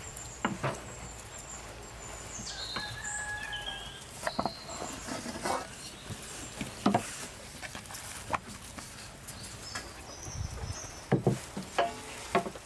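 Birds singing with clear whistled notes, over scattered light knocks and taps from handling dough and utensils on a wooden board and a cast iron pan.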